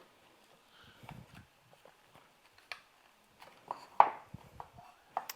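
A few soft knocks and clicks from a patacón press being closed on a once-fried green plantain piece to smash it into a cup shape. There is a low thud about a second in and the sharpest click about four seconds in.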